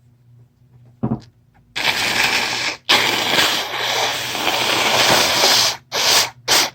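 A person blowing a congested nose hard into a tissue, their nose stuffed up by a cold. It goes as a one-second blow, then a long blow of about three seconds, then two short blows near the end, after a brief thump about a second in.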